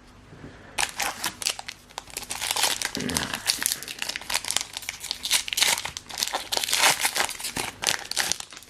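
Foil Pokémon booster pack wrapper being crumpled and crinkled in the hands, a dense irregular crackling that starts about a second in and runs until just before the end.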